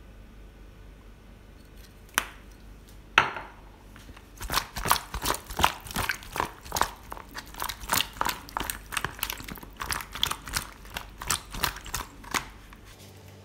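Two sharp clicks, then hands squeezing and tossing raw chicken wings in marinade inside a plastic tub: a dense, irregular run of wet squelches and slaps, with pieces knocking against the plastic, from about four and a half seconds in until near the end.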